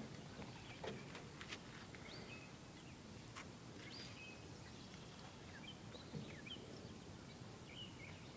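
Quiet lakeside ambience with faint, scattered bird chirps, a couple of soft clicks in the first second.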